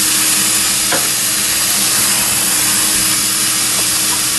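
Vacuum cleaner motor running steadily, a loud even rush of air over a low hum, as it draws wood gas through the gasifier and filter to purge them; a faint click about a second in.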